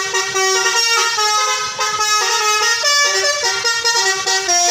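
Basuri telolet bus horn, a multi-tone musical air horn, playing a tune: a run of held notes stepping up and down in pitch every fraction of a second.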